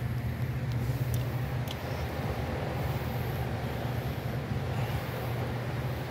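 Steady low machine hum with a noisy background, and two faint clicks a little over a second in.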